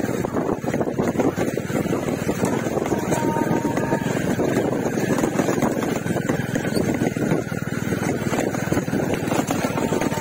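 Motorcycle engine running steadily while riding, mixed with a dense, even rumble of wind noise on the microphone.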